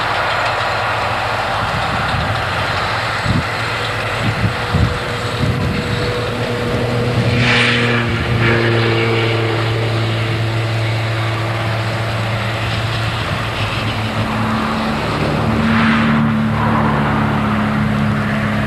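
Tractor engines running steadily while a tractor-drawn round baler works the hay, the engine note shifting a couple of times. A few short knocks come about four seconds in, and a brief hiss about halfway through.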